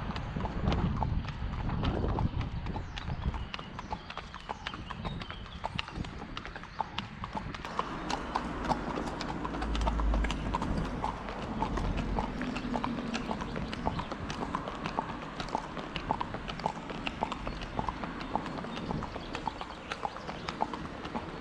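Hooves of two horses walking on asphalt pavement: a steady clip-clop of many sharp hoof strikes a second. A low rumble comes in near the start and again about ten seconds in.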